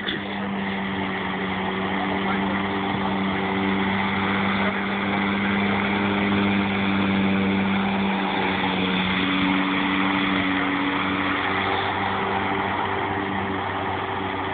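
Autonomous robotic lawnmower running as it mows grass. A steady mechanical hum with a held low tone that wavers slightly in pitch.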